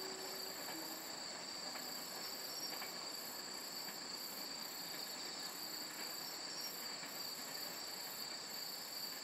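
Insect chorus trilling steadily at high pitch, with a faster pulsing buzz above it.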